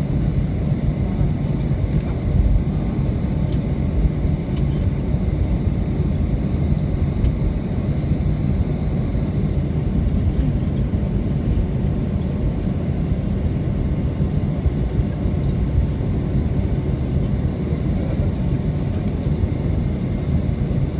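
Boeing 757-200 taxiing at idle thrust, heard inside the cabin as a steady low rumble with a faint high engine whine over it.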